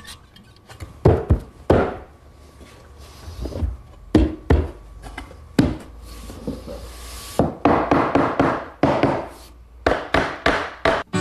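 A series of irregular wooden knocks and thumps from tapping glued, biscuit-joined plywood fence sections into place on the workbench top, with a few rougher scraping bursts near the end.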